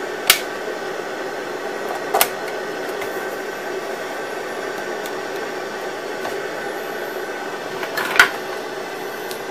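Static hiss from the Sony Mega Watchman FD-555's speaker, its analog TV tuner receiving no station. The hiss is steady and is broken by three short clicks, near the start, about two seconds in, and near the end.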